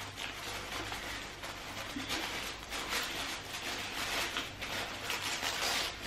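Tissue paper rustling and crinkling as it is unfolded and lifted inside a cardboard box, an irregular run of soft crackles.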